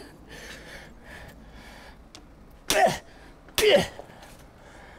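A man grunting twice with effort, about a second apart past the middle, each grunt sharp and falling in pitch, as he puts force into a hammer-and-chisel attack; before that only low room noise.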